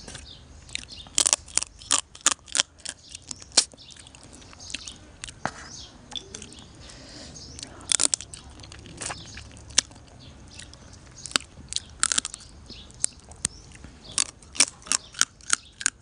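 Close-miked eating of blue swimming crab: crisp cracks and crunches of shell and meat being bitten and chewed. The sharp clicks come in bunches, about a second in, around eight seconds, around twelve seconds, and as a quick run near the end.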